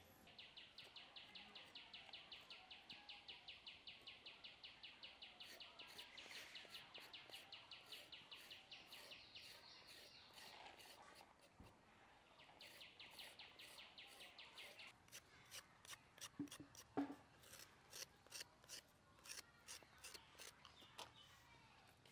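Faint, fast, rhythmic high chirping, about four pulses a second, through the first half, breaking off briefly and returning for a few seconds. In the second half, irregular sharp scraping clicks of a peeler stripping skin from raw carrots.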